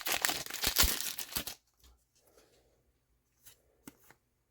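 Foil booster pack wrapper crinkling and tearing as it is ripped open, stopping suddenly about a second and a half in. A few faint clicks follow near the end.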